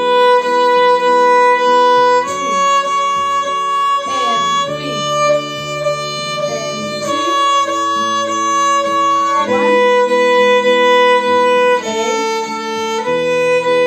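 Violin playing a simple beginner melody on the A string: long bowed notes that change about every two seconds, over a backing track.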